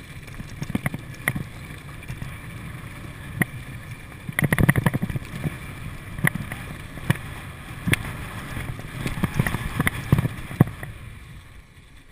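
Norco downhill mountain bike rolling over loose gravel, its chain, frame and the camera mount clattering and knocking over bumps above a steady rush of tyre and wind noise. The clatter is thickest about four and a half seconds in and dies down near the end.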